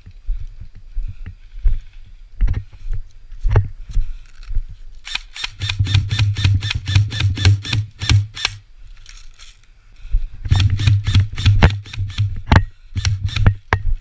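Airsoft rifle firing two long strings of rapid shots, the first about five seconds in and the second about ten seconds in, each shot a sharp crack over a low hum. Scattered single knocks come between the strings.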